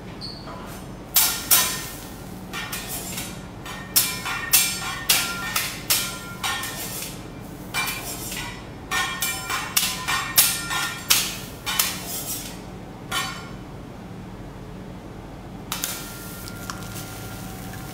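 Metal teppanyaki spatulas clanking and tapping on a steel griddle: a long series of sharp, ringing strikes, some in quick runs, that thins out to a few lighter taps near the end. A steady low hum runs underneath.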